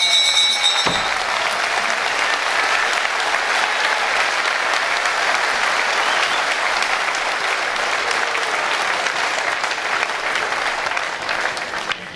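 Arena crowd applauding steadily, easing off slightly near the end.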